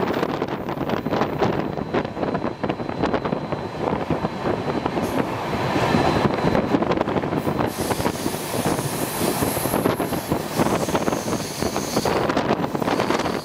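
Train running at speed, heard from inside a coach at the window: steady rumble of wheels on the rails with rapid clicks and clatter. From about eight seconds in, wind on the microphone adds a rushing hiss.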